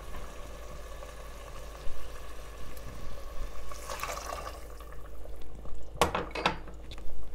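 Warm water poured from a drinking glass into a pot of lamb and chickpeas, splashing most strongly about four seconds in, followed by a couple of sharp knocks near the end.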